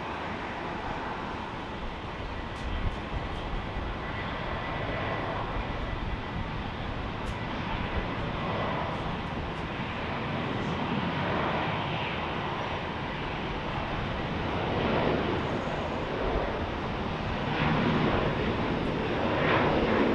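Boeing 737-800 jet airliner's twin CFM56 turbofan engines at takeoff power during the takeoff roll: a steady rushing jet noise that grows a little louder near the end.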